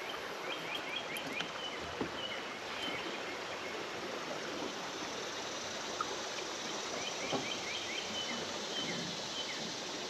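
Steady rush of flowing river water. Over it, a songbird sings quick runs of short rising chirps, once near the start and again about seven seconds in.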